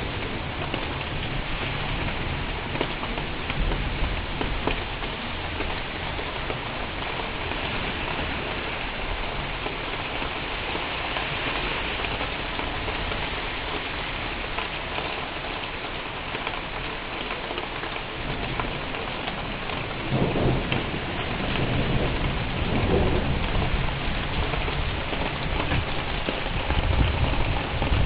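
Steady heavy rain falling, with thunder rumbling low at the start and again, louder, over the last several seconds.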